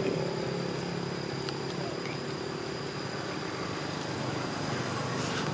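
Steady outdoor background hiss with a constant high-pitched whine and a few faint clicks; a low hum fades out in the first second.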